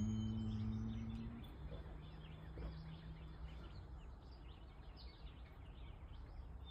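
Songbirds chirping faintly in the background, with a low steady hum in the first second and a half that drops to a lower steady tone and fades out about three and a half seconds in.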